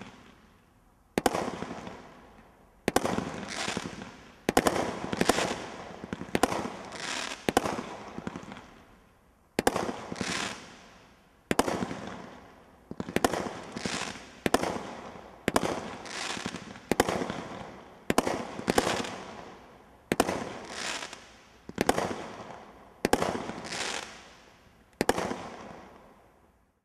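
Cat 2 19-shot firework barrage (combination roman candle) firing: a string of sharp bangs roughly one a second, some in quick pairs, each trailing off over a second or so. The firing stops just before the end, with a short pause around the eight- to nine-second mark.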